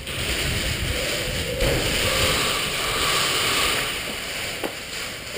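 Steady rustling and rubbing noise from a body-worn camera moving with its wearer, with one sharp tap near the end.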